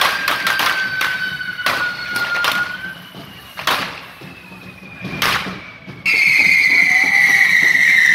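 Correfoc firework fountains (carretilles) spraying sparks and whistling, each a steady whistle slowly falling in pitch, with several sharp firecracker bangs. One whistle fades out about three seconds in, and a new, louder whistle starts suddenly about six seconds in.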